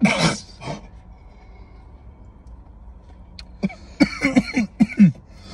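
A man blows out a big hit of vape vapour with a loud breathy exhale, then coughs in a string of short bursts near the end, having been unable to hold the hit in.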